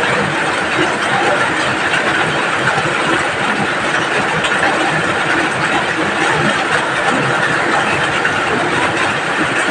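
Steady rain falling, an even hiss with a few faint scattered drip ticks.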